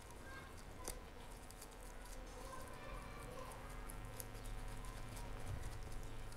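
Faint, scattered small clicks and rustles of plastic-gloved fingers lifting and folding a thin rolled-out pastry sheet over a soft filling on a wooden board. A low hum grows in the second half.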